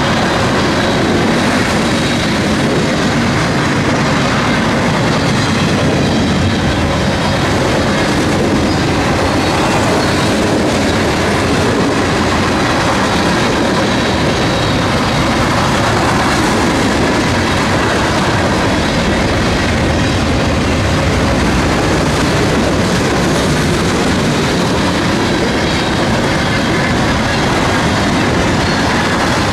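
Train cars rolling past on the rails, a steady, loud clatter of wheels over the track.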